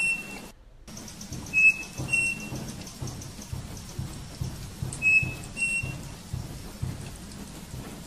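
Striped cuckoo (saci) singing its two-note whistled song, the second note slightly higher, given twice about three and a half seconds apart. Behind it runs a steady rain-like rushing noise with low rumbling.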